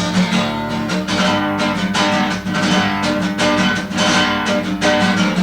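Acoustic guitar strummed in a steady rhythm, with no vocal.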